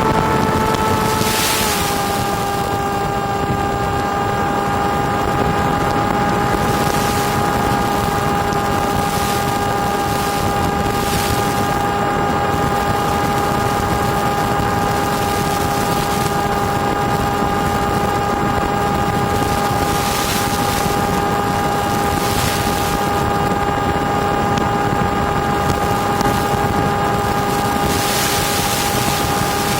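FPV drone's motors and propellers whining at a steady pitch, dropping slightly once about two seconds in and then holding, with wind rushing over the microphone in occasional gusts.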